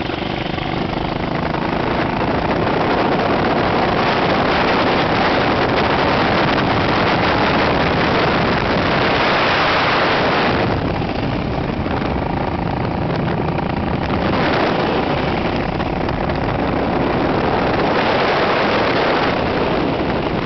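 Motorcycles riding along at speed, engines running beneath a heavy rush of wind on the microphone, which swells about halfway through and again near the end.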